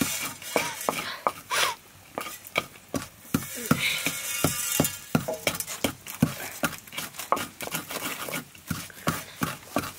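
Stone pounder on a wooden handle striking into a stone mortar, crushing seeds and spices for a sauce, in a steady rhythm of about two knocks a second.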